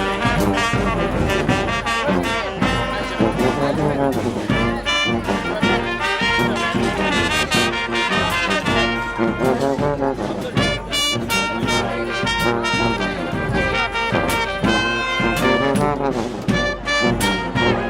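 Street brass band playing a loud, busy tune, with trombones and trumpets over steady drum hits.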